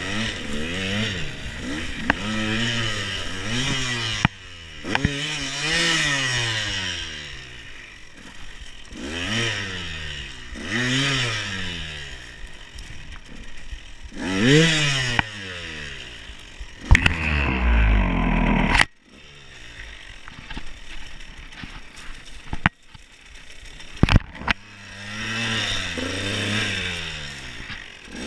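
Enduro dirt bike engine revving in repeated rising-and-falling blips, about one every two seconds. About two-thirds of the way through, it rises to a louder low rumble and then cuts out suddenly. A few sharp knocks follow in the quieter gap, and then the engine is running and revving again near the end.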